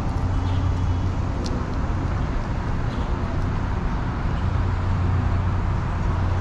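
Steady city traffic noise: an even low rumble of cars on nearby roads.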